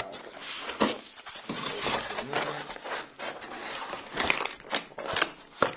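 Cardboard shipping box and packaging being handled: irregular crinkling and scraping with several sharp knocks.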